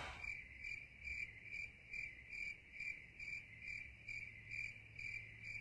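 Crickets chirping faintly in a steady rhythm, about three chirps a second.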